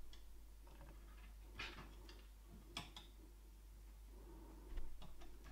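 Faint scrapes and clicks of a fingernail stripping the insulation off thin slot-car motor wire ends: three short scratchy sounds, the sharpest a click in the middle, over a quiet room.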